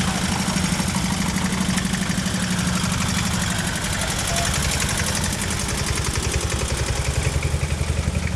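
Vintage tractor engines running at low speed as the tractors drive slowly past one after another, with a steady, even beat of exhaust pulses.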